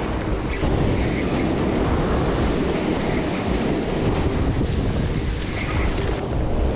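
Ocean surf breaking and washing up a sandy beach, mixed with heavy wind buffeting on the microphone.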